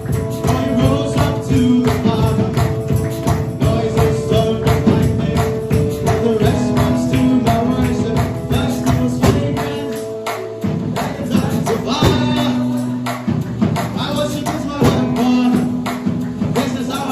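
Upbeat gospel praise music with a tambourine shaken and struck in a fast steady rhythm over a band, with some singing. The bass drops out for a moment about ten seconds in.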